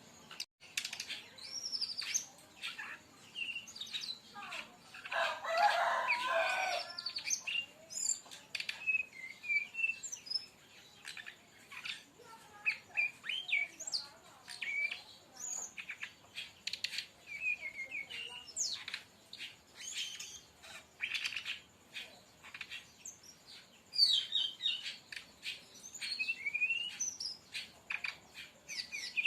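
Brown-chested jungle flycatcher singing: a long run of short, sharp chirps and quick whistled slurs, with a louder, lower burst about five seconds in.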